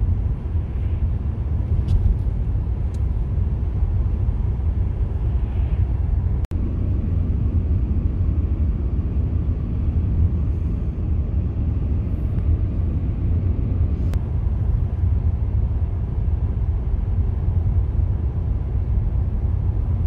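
Steady low rumble of road and tyre noise heard inside a moving car's cabin, with a momentary dropout about six and a half seconds in.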